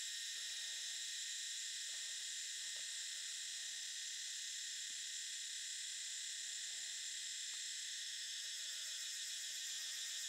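Steady, high-pitched insect chorus droning without a break, with a few faint light taps.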